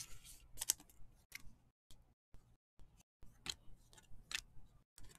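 Trading cards being flipped through one at a time: soft, scattered clicks and slides of card stock, with short quiet gaps between them.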